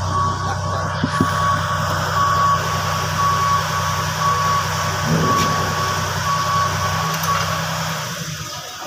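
A crane's engine running under a steady drone while its warning alarm beeps about once a second as it moves a load on its hook. The beeping stops about seven seconds in, and the engine drone falls away shortly after.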